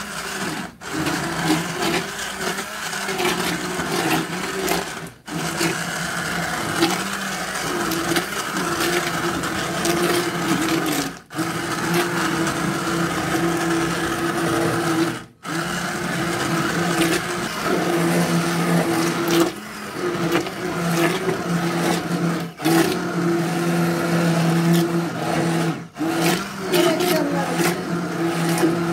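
Electric stick (immersion) blender running in a large aluminium pot of cooked red peppers and tomatoes, puréeing them into sauce; the motor hums steadily and cuts out for a split second several times before starting again.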